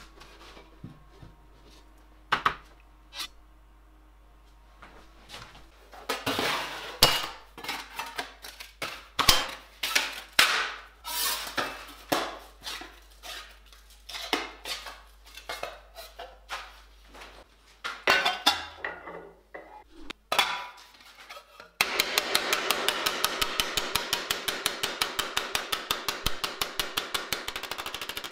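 Thin stainless steel sheet being worked on an anvil: irregular sharp metallic knocks and clanks, then, about three-quarters of the way through, a rapid even run of hammer blows, about ten a second, as the sheet is hammered over a steel stake.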